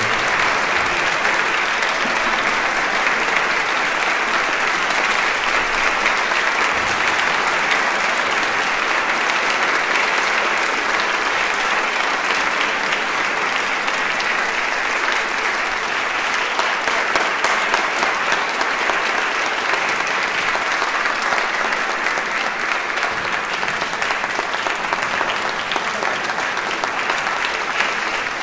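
Concert audience applauding steadily, an even clapping with no music.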